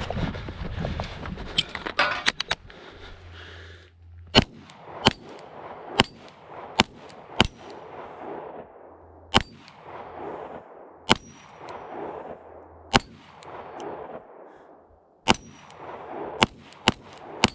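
A handgun firing about a dozen shots at a steel Polish star spinner target, unevenly spaced, starting about four seconds in. Each shot echoes briefly, and a few are followed by a faint ring from the steel. Before the shooting there are a couple of seconds of rustling movement from the shooter arriving at the firing position.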